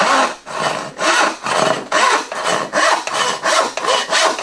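Hand sawing with a 12 TPI crosscut backsaw into a softwood board. Steady push-and-pull strokes rasp through the wood at about two strokes a second.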